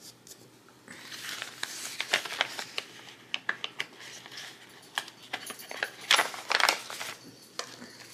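Paper sticker-book pages being handled: rustling and crinkling with many scattered sharp ticks, starting about a second in, with a louder stretch of rustling about six seconds in.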